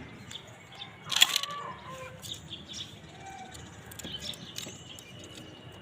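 Birds calling, with one loud, short squawk a little over a second in followed by a brief gliding call, and a few faint clicks scattered through.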